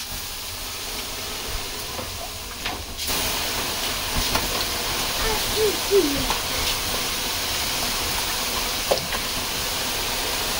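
Water ladled onto the hot stones of a homemade sauna stove, hissing into steam: the first löyly from the new stove. The hiss starts at once, grows louder about three seconds in, then runs steadily.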